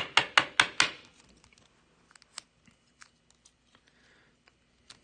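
Trading cards being handled in clear plastic sleeves and a rigid toploader. About a second of sharp, evenly spaced clicks comes first, then only scattered light ticks and a brief soft rustle.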